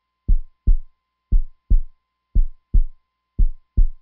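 Heartbeat sound effect: low lub-dub double thumps, about one pair a second, four pairs in all, with dead silence between them.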